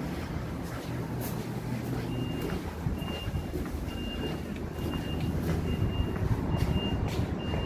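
A vehicle's reversing alarm beeps steadily, one short high beep about every three quarters of a second, starting about two seconds in, over a low engine-like rumble. A few scattered knocks are heard as well.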